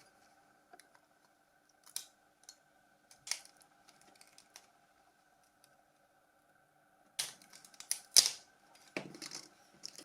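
Small plastic parts of a mobile phone being handled and pried apart during disassembly. There are a few isolated light clicks, then a quicker run of clicks and scrapes in the last three seconds, over a faint steady hum.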